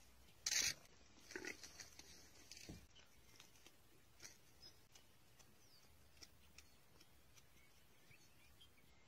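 A short, loud, breathy animal noise about half a second in, a weaker one about a second later, then near silence with faint scattered ticks.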